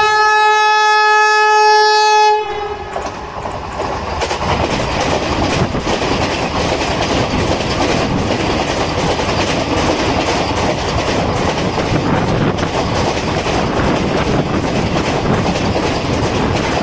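Vande Bharat Express trainset sounding one long, steady horn note that stops about two and a half seconds in, then passing at speed: a continuous rush of wheel and air noise with rapid clicking of wheels over rail joints.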